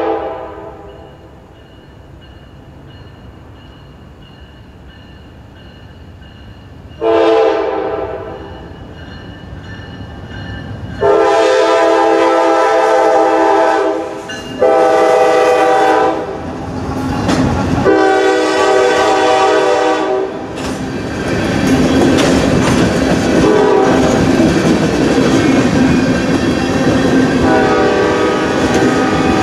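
Norfolk Southern diesel locomotive's air horn sounding a series of blasts as it approaches and enters the grade crossing: a short blast about seven seconds in, then longer blasts around the middle. The train of loaded tank cars then rolls through with a steady rumble and wheel clatter over the rail joints.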